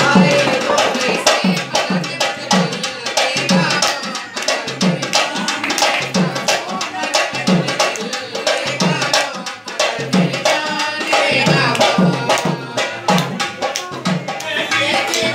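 Dhol drum played live for dancing: deep thumps on the bass head about twice a second under quick, sharp strokes on the treble head, in a steady driving rhythm.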